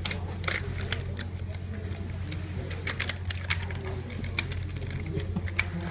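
Irregular light clicks and taps from markers and coloured pencils working on paper as several hands colour a drawing, over a steady low hum.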